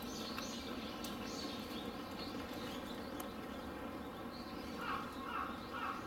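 Steady outdoor background noise with faint, scattered bird calls. Bending, voice-like sounds come in near the end.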